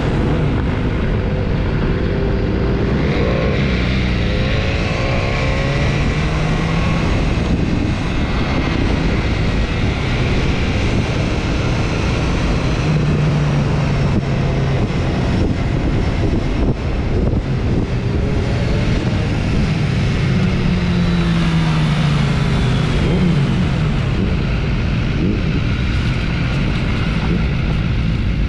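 Motorcycle under way, its engine note rising and falling a few times as the rider works the throttle, over a steady rush of wind noise.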